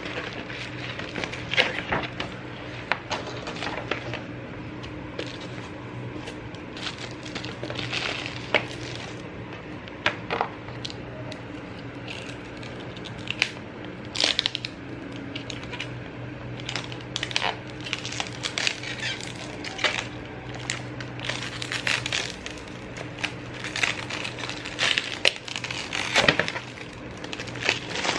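Plastic packaging and a clear plastic tablet case being handled: scattered taps, clicks and crinkles as the case is taken from its box and its protective film peeled off, over a steady low hum.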